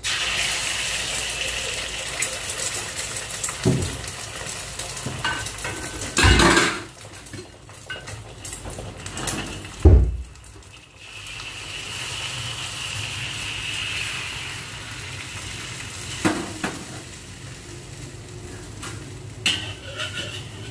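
Beaten egg sizzling in a hot wok, the hiss starting the moment the egg is poured in and going on as it spreads into a thin omelette. A few knocks and scrapes of the wok and a metal spatula, the heaviest about six and ten seconds in.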